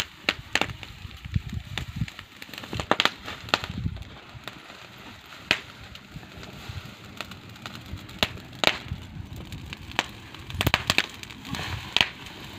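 Open fire of dry grass and green chickpea plants crackling, with sharp pops at irregular intervals, as the chickpeas roast in the flames.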